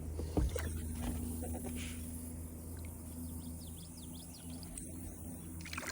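Small birds chirping in a quick run of short, high notes through the middle, over a steady low hum.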